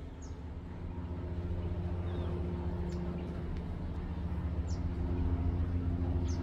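Steady low mechanical hum that slowly grows louder, with about four short, high bird chirps spread through it.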